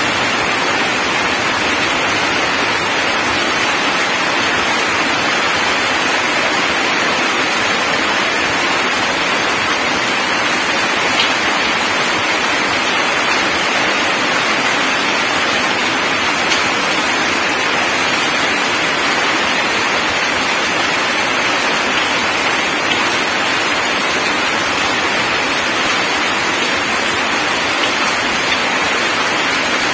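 Heavy rain falling steadily on gravel and puddled ground, an even dense hiss of drops with no let-up.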